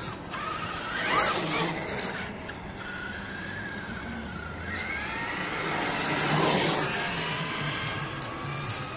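Traxxas E-Revo 2.0 radio-controlled monster truck driving on asphalt: its electric motor whines, rising and falling in pitch with the throttle, over tyre noise. It is loudest as it passes close, about a second in and again around six to seven seconds in.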